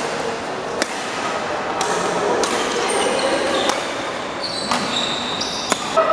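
Badminton rally: rackets strike the shuttlecock about seven times, a sharp crack every half second to a second, with short high squeaks of shoes on the court, echoing in a large hall.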